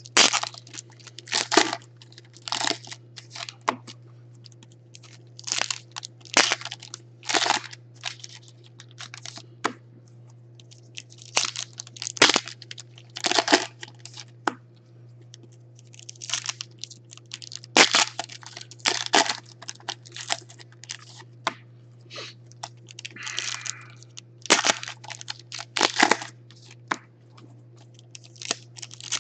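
Foil trading-card packs (Panini Contenders football) being torn open and crinkled by hand: a string of short, sharp rips and crackles at irregular intervals. A steady low hum runs underneath.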